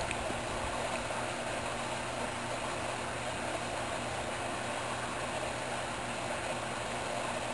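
Steady, even background noise with a faint low hum underneath. No bird calls stand out.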